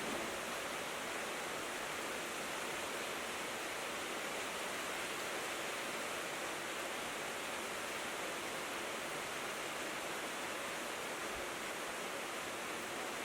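Steady rain falling on a tin roof: an even, unbroken patter with no pauses or single drops standing out.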